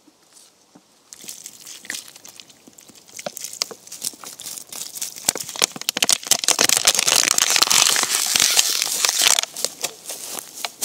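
Thin plastic water bottle crinkling and crackling as a hand grips and squeezes it. The crackles start about a second in, grow to their loudest between about six and nine seconds in, then thin out.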